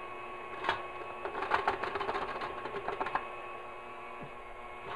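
Stand mixer motor running steadily, kneading bread dough with a dough hook as flour is worked in. A scatter of light clicks and knocks comes from about one to three seconds in.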